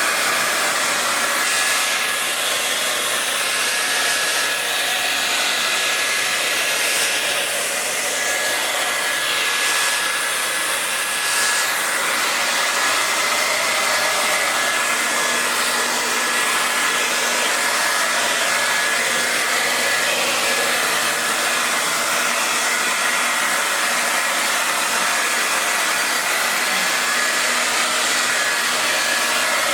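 Hand-held electric hair dryer blowing steadily: a continuous rush of air with a faint steady whine from its fan motor, with small shifts in the airflow sound over the first dozen seconds.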